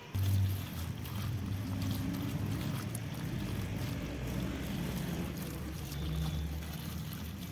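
Water pouring onto chopped bottle gourd in a wicker basket, splashing and trickling as a hand stirs and rubs the wet pieces, starting just after the beginning. A steady low rumble runs under it and is the loudest part.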